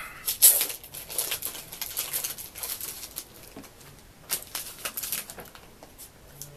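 Hands unwrapping the packaging around mailed trading cards: irregular rustling and crinkling in several bursts, loudest about half a second in and again around four to five seconds in.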